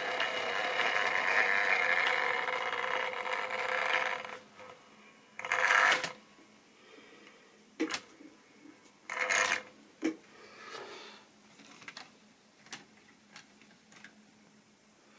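Model railway locomotive's small electric motor whining steadily as it hauls a train of tank wagons along the track, stopping about four seconds in. Then come two brief scraping rattles and a scatter of sharp clicks as the plastic wagons are handled on the track.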